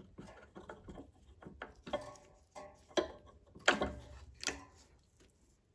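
Small metallic clicks and knocks as pliers work a lawnmower carburettor free of its throttle linkage and lift it off the engine. It is an irregular scatter of sharp ticks, with a few louder knocks about three to four and a half seconds in.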